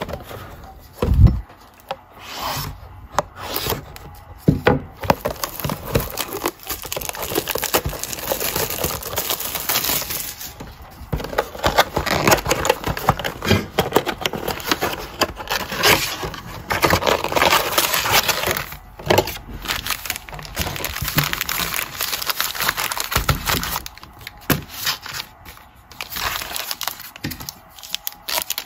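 A cardboard retail box of Panini Mosaic football cards being handled and torn open, its flaps pulled back with crackling and rubbing, and a loud knock about a second in. Near the end, foil card packs rustle as they are taken out.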